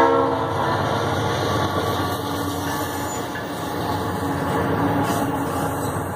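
Dash-9 diesel-electric locomotives passing close by, engines running under load as they climb, with wheels rumbling on the rails. The end of a horn blast cuts off in the first half-second.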